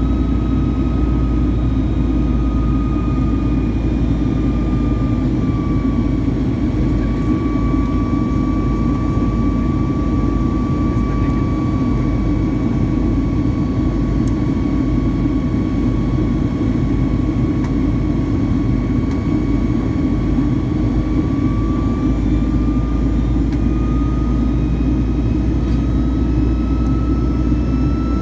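Boeing 757-200's jet engines heard from inside the passenger cabin over the wing during the climb after takeoff: a steady low rumble with a high fan whine. The whine dips slightly in pitch about six seconds in and rises back near the end.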